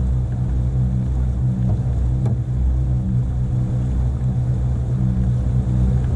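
Motorboat engine running steadily while the boat is under way, a constant low drone.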